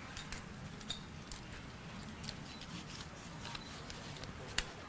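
Small papery clicks and rustles as paper sticky notes are peeled off a pad and pressed onto a board, with one sharper click near the end.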